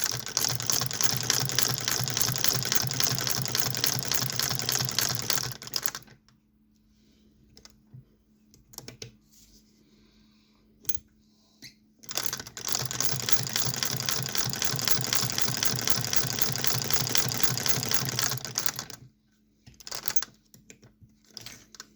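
Antique Singer 12K New Family sewing machine stitching with a fast, even clatter for about six seconds, stopping, then after a pause broken by a few small clicks, sewing again for about seven seconds.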